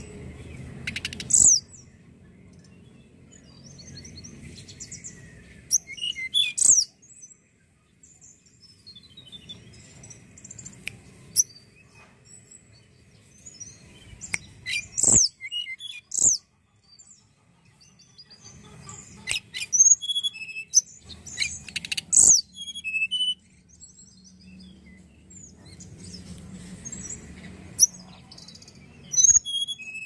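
Hill blue flycatcher (tledekan gunung) singing: short phrases of very high, sharp whistles and quick falling notes, coming in separate bursts with pauses between and busiest in the second half. A faint low hum of background noise lies underneath.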